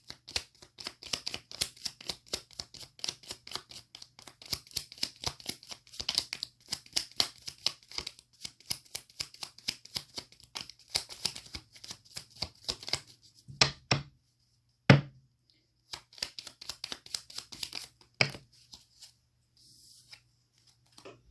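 A deck of tarot cards being shuffled by hand: a fast, even patter of cards slapping together. Partway through it pauses for a few single louder taps, then a short second run of shuffling stops near the end.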